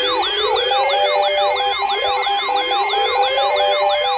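Electronic siren-style alert going off continuously, made of several layered sounds: a fast yelping sweep about four times a second, a slower rising wail, and a steady tone. It is the alarm for a newly issued severe thunderstorm warning.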